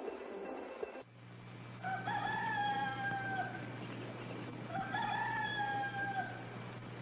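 A rooster crowing twice, each crow about a second and a half long, rising at the start and then held, over a steady low hum.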